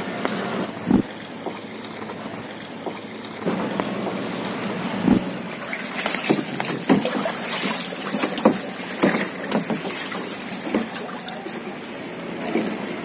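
Water lapping and splashing against a plastic sit-on-top kayak, with irregular short splashes and knocks.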